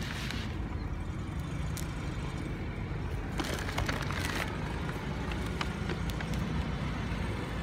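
Steady low hum of nearby vehicle engines and traffic, with a few soft crinkles of a chocolate egg's foil wrapper being unwrapped.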